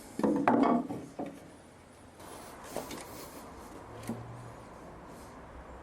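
Wood being handled: a short scrape in the first second, then a few light knocks.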